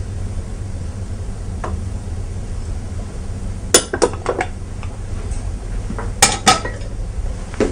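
Dishes and utensils clinking and knocking as they are handled on a kitchen counter, a quick cluster of clinks about four seconds in and another about six seconds in.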